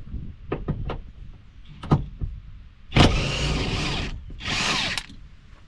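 A cordless power tool runs twice, first for a little over a second and then briefly, backing a bolt out of the seatbelt column. Before it come a few light clicks of the tool and socket being handled.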